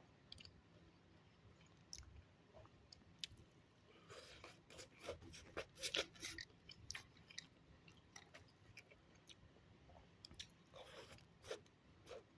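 A person chewing homemade omelette close to the microphone: faint clicking mouth sounds in clusters, busiest from about four to seven seconds in and again around eleven seconds in.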